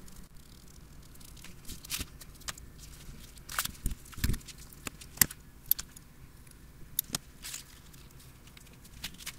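Handling sounds from an old paper pamphlet being moved and closed on a work surface: scattered light clicks and taps, with a couple of soft thumps about four seconds in.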